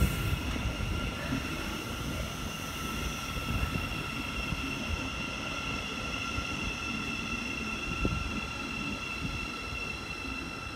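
Electric train at the station, giving off a steady high-pitched electrical whine made of several tones over a low rumble.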